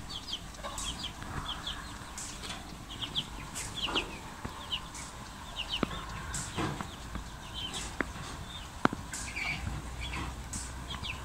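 Domestic chicks peeping in frequent short high chirps, with a hen clucking now and then. A few sharp ticks stand out, the loudest about nine seconds in.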